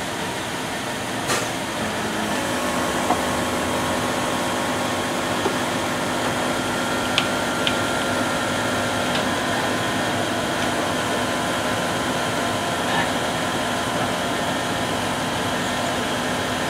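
Steady mechanical hum of a 2006 Land Rover LR3 standing still as its air suspension tries to raise it off the bumpstops, with the compressor pumping air. A steady tone comes in about two seconds in, and there are a few faint clicks.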